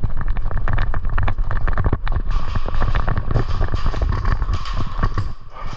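Fast, irregular footsteps and rattling gear of an airsoft player moving quickly with a rifle, with heavy low rumble from the body-worn camera being jostled.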